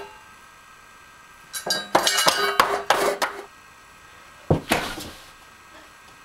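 A plate clattering and banging on a tabletop in a rapid run of knocks lasting about two seconds, then a single thump about four and a half seconds in.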